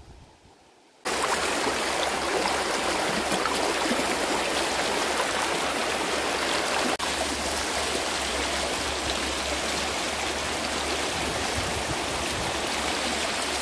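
Steady rush of flowing river water. It starts abruptly about a second in and cuts off just before the end, with a brief break about halfway.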